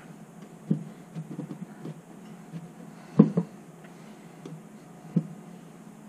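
Scattered knocks and clicks as a virtual pinball cabinet's top panel is handled and worked loose by hand, the loudest knock about three seconds in.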